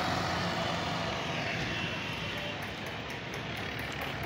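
Street traffic: the low engine hum of a vehicle that has just passed, fading steadily as it moves off, over general street noise.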